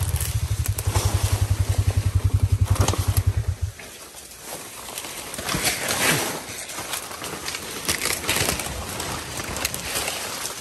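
A vehicle engine idling with an even low pulse, switched off about a third of the way in. Scattered crackles and rustles follow, like brush and twigs being trodden.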